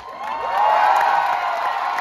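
Auditorium crowd cheering and whooping, many voices at once, swelling about half a second in as the dance music cuts off.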